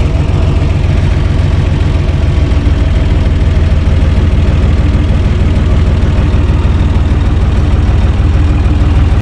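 UTB Universal 445 DT tractor's four-cylinder diesel engine running steadily, heard from inside the tractor's cab.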